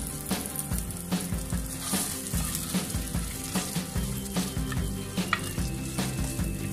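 Tomato and chilli sauce with fried onions sizzling in a saucepan as it is stirred with a spatula, over background music with a steady beat.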